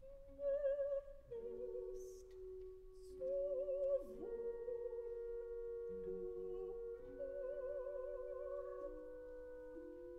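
Opera music soundtrack: a singer holding long notes with a wavering vibrato over sustained orchestral chords.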